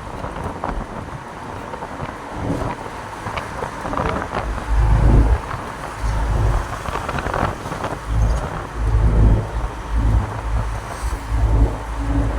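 Truck on the move, heard from the cab: a steady road and engine rumble with repeated heavy low surges and scattered rattles and clicks.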